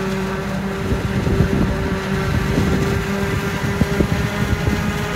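Claas self-propelled forage harvester chopping standing maize, its engine and chopper giving a steady hum, with dense crackling and clatter from the header cutting stalks from about a second in; the tractor pulling the silage trailer alongside runs with it.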